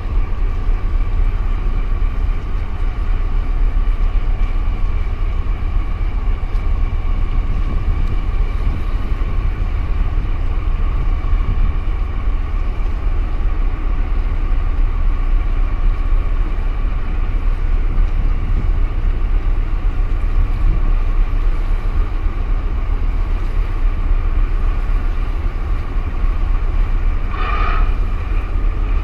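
Harbour tugboat's diesel engines running hard as it pushes against a container ship's hull: a steady low rumble with a steady whine on top. A brief higher pitched call sounds near the end.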